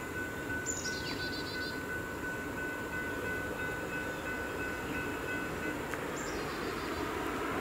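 Steady low rumble of an approaching freight train, not yet in sight, mixed with passing road traffic. A faint steady high tone runs until about six seconds in, and a bird chirps twice.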